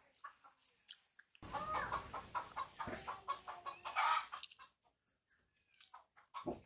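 A chicken clucking, a run of short repeated calls starting about a second and a half in, loudest around four seconds.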